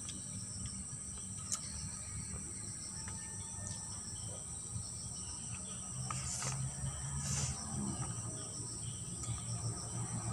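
Steady high-pitched chorus of insects, with a few faint clicks and rustles.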